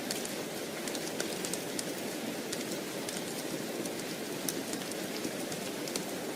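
Steady rain, with many small sharp ticks scattered through it.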